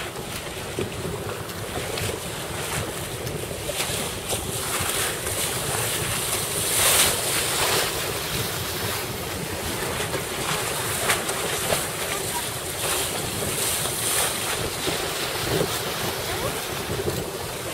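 Wind buffeting the microphone over choppy sea, with waves and splashing water, and a few louder surges of water noise about seven and fourteen seconds in.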